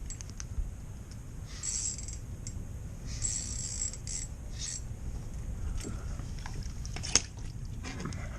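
Short scraping and rustling handling noises, with one sharp click a little after seven seconds, over a steady low hum.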